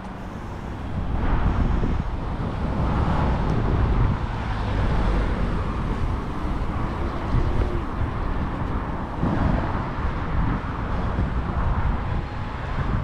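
Road traffic: cars passing, swelling as each goes by, over wind rumbling on the microphone.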